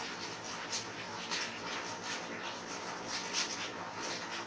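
Soldering iron working on the solder joints of a TV's main circuit board: a run of short, irregular hissing scrapes as the iron is moved over the joints. The iron is desoldering the bulged 1000 µF 35 V filter capacitor that supplies the vertical IC.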